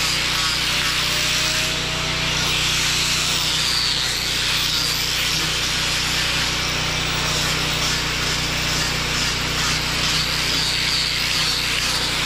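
Electric sander running steadily against a wooden carving, with the steady hum of a portable generator's engine underneath.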